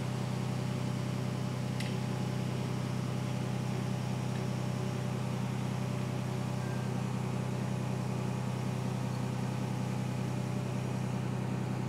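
A steady, low machine hum that does not change, with one faint click about two seconds in.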